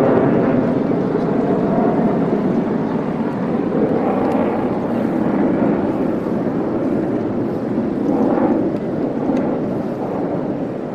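Distant jet roar of Republic of Singapore Air Force F-15SG fighters after an afterburner bomb burst, a steady rumble that slowly grows quieter.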